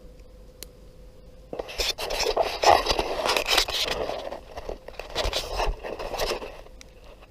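Irregular scraping and rustling that starts about a second and a half in and lasts about five seconds.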